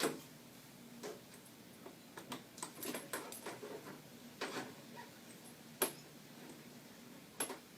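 Scattered clicks and light knocks of a microwave's plastic control panel and its wire connectors being handled and pushed into place, the sharpest right at the start.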